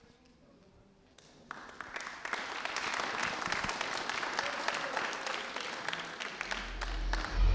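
Small audience applauding, starting about a second and a half in and carrying on steadily.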